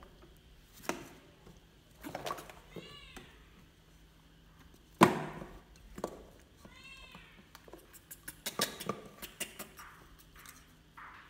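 Baby monkey giving two short, high, meow-like calls that rise and fall in pitch, among knocks and taps from its scrambling on a plastic chair and the milk bottle being handled. The loudest knock comes about five seconds in, and a quick run of taps follows near the end.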